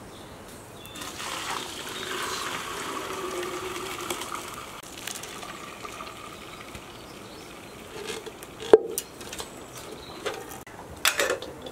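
Liquid being poured for a few seconds, then a sharp knock and a few clicks near the end.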